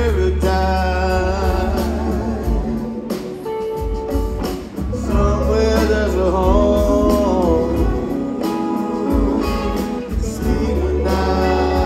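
Live band playing a slow soul song, with singing over electric guitar, keyboards, bass and drums and a heavy bass line.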